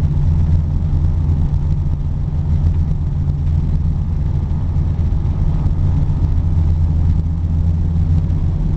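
Engine of a 1947 Bombardier snowmobile running steadily, heard from inside its cabin as a loud, even low drone.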